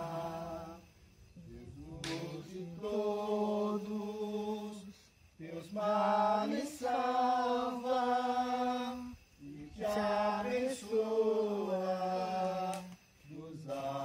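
Singing: a slow song in long held notes, sung phrase by phrase with short breaks between phrases.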